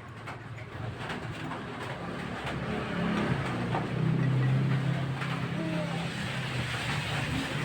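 A motor running steadily with a low hum that grows louder about halfway through, with scattered light clicks.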